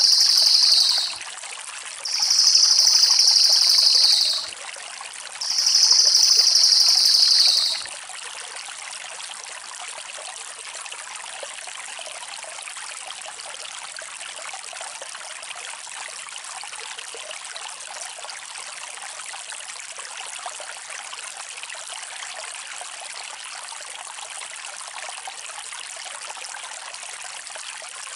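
A cililin songbird singing three long, high-pitched rolling trills, each about two seconds, dropping slightly in pitch as each ends, over a steady sound of running water. The trills stop about eight seconds in, and the running water carries on alone.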